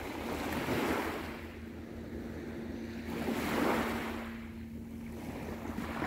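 Small sea waves breaking and washing up the shore, in three swells a few seconds apart, with a faint steady low hum underneath.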